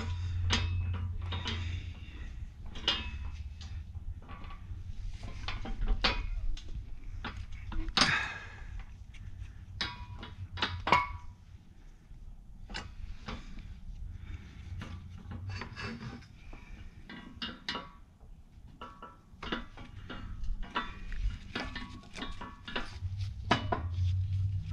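Scattered metal clinks and knocks as U-joint bearing caps and the driveshaft yoke are handled and set in place in a shop press.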